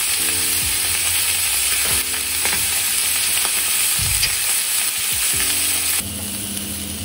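Marinated beef steaks and mushrooms sizzling in a hot cast-iron ridged grill pan, a steady hiss; it turns a little quieter about six seconds in.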